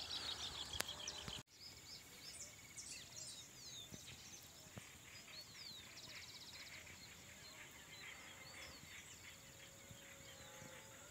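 Faint chorus of small birds chirping and whistling, with a quick trill about five seconds in, over a steady high-pitched whine.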